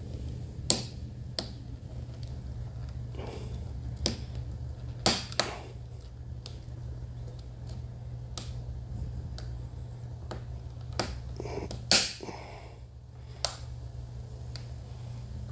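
Sharp clicks and snaps, about eight scattered through, the loudest near the start and about 12 seconds in. They come from fingers working the cap of a carbon fiber Alfa Romeo 4C door mirror back into its base until it snaps into place. A steady low hum sits underneath.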